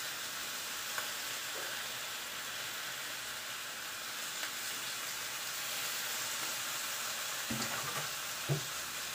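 Fish frying in hot oil in a pan, a steady sizzle, with a couple of short knocks near the end.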